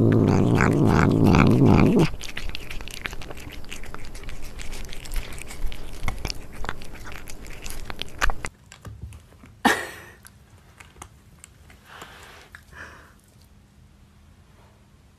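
Cat chewing food from a stainless-steel bowl right at a microphone: a dense run of small crunching clicks. After about eight seconds this gives way to a much quieter stretch with a few short, separate sounds.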